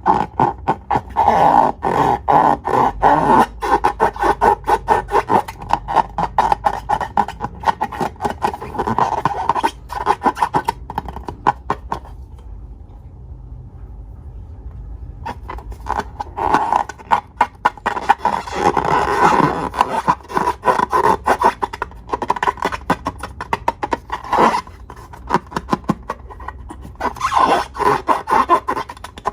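Rubber balloons and slime being squeezed and rubbed by hand: squeaky rubber rubbing with dense sticky clicking and crackling. A quieter pause of a few seconds comes about halfway through.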